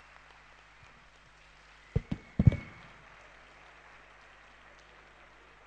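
Quiet room tone of a hall, broken about two seconds in by a short cluster of dull knocks and thumps close to the microphone, with a brief faint squeak among them.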